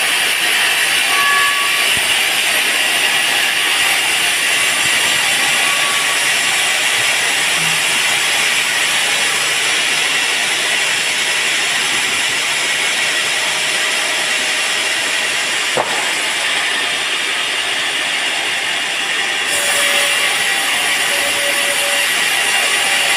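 Band sawmill blade cutting through a teak log, a steady loud hiss, with a single sharp click about two-thirds of the way through.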